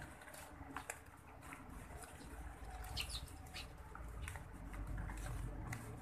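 Eurasian tree sparrows pecking rice grains off concrete: scattered light taps and a few short high chirps, the clearest about three seconds in. A low rumble runs underneath from about two seconds in to near the end.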